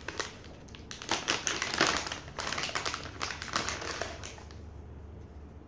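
A run of quick, irregular taps and clicks, which stops about four seconds in.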